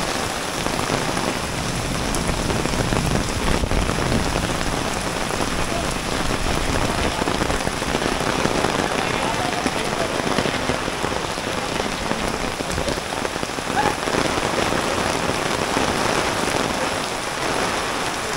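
Steady rain falling on a wet, puddled lane.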